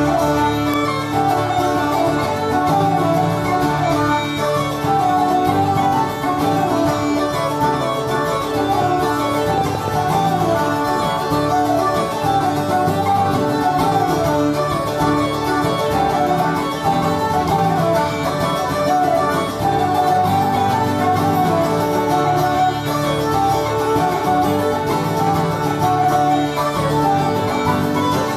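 Irish jigs played live by a traditional group: uilleann pipes carry the ornamented melody with a steady drone beneath, over strummed acoustic guitar and a second plucked string instrument.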